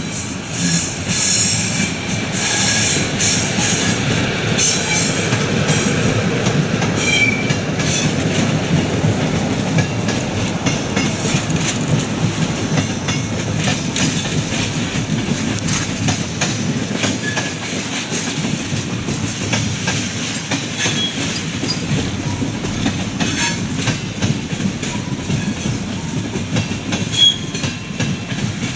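Train rolling past, its wheels clattering over rail joints and points with a steady low rumble, and some high wheel squeal in the first few seconds.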